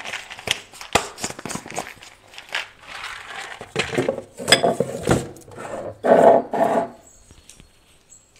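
Plastic and glass storage jars being handled on a kitchen shelf: a run of small knocks and clicks as containers are set down and moved, then two louder scraping sounds about six seconds in.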